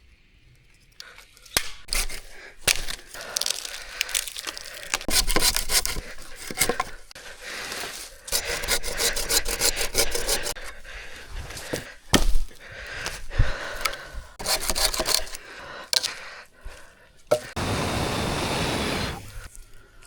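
Dry wood being snapped and handled: a run of sharp cracks mixed with scraping and rasping, and a steadier rasp lasting about two seconds near the end.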